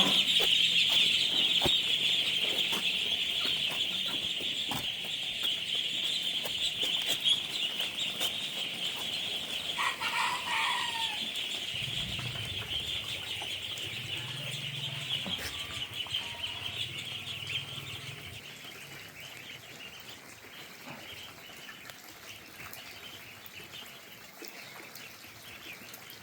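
A flock of young ducklings peeping together in a dense, continuous high chorus that slowly grows fainter, with one louder separate call about ten seconds in.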